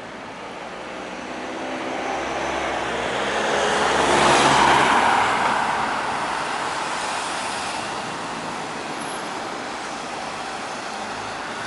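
A road vehicle passing by over steady traffic noise, growing louder to a peak about four and a half seconds in, then fading away.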